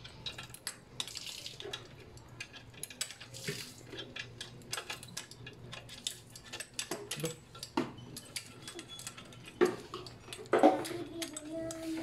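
Irregular light metallic clicks and clinks of bike-rack mounting hardware being handled and fitted against the bicycle's rear frame.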